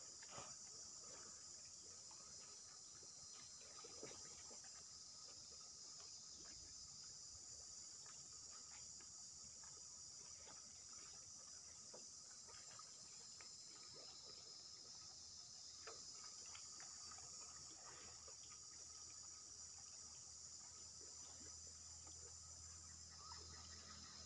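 Faint, steady chorus of insects, a continuous high shrill buzz, with a few scattered faint clicks.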